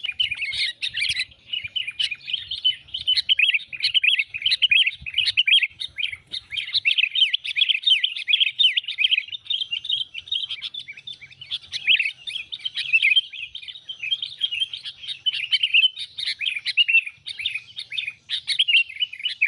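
Sooty-headed bulbul (kutilang) chattering: a dense, almost unbroken run of rapid short chirps. This is the agitated fighting chatter used as a lure call to draw other bulbuls in.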